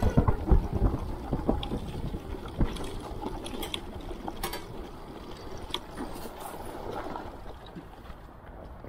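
Super73 S2 electric bike being ridden: wind and ride rumble with scattered knocks and rattles, the heaviest bumps in the first second, settling quieter toward the end.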